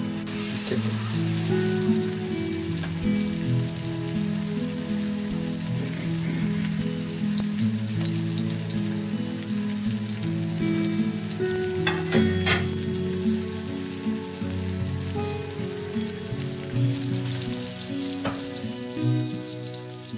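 Spice-coated tuna pieces frying in hot vegetable oil in a non-stick pan: a steady, dense sizzle. Two sharp clicks come a little past the middle.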